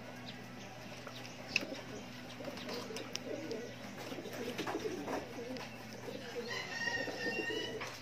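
Racing pigeons cooing, a low warbling that comes and goes, with a brighter, higher-pitched call near the end.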